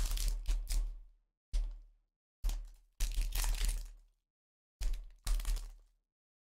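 Plastic wrapper of a 2017 Donruss Optic football trading-card pack crinkling and crackling as it is torn open by hand, in about six short bursts separated by silence.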